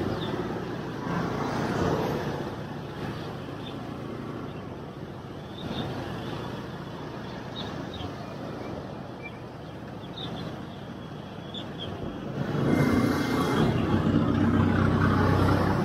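Riding a motorcycle through town traffic: a steady mix of engine and road noise, with other vehicles passing. It grows louder about twelve seconds in.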